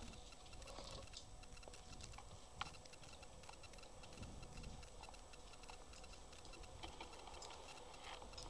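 Near silence: faint background hiss with a few scattered light clicks, one slightly stronger about two and a half seconds in.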